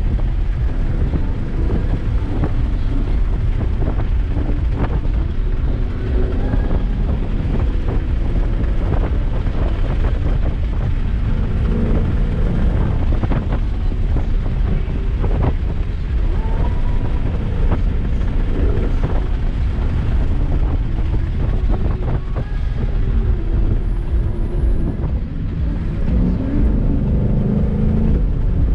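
Car engine pulling hard and easing off during spirited driving, its pitch rising and falling several times, over a constant heavy rumble of road and wind noise with scattered short knocks.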